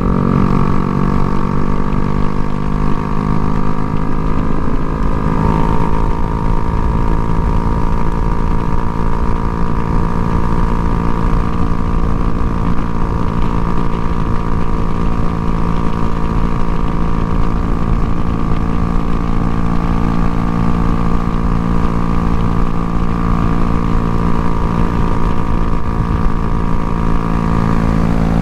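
Honda Grom's single-cylinder engine running steadily through an aftermarket Kemimoto exhaust, its pitch dipping slightly about five seconds in, over a low rumble of wind on the microphone.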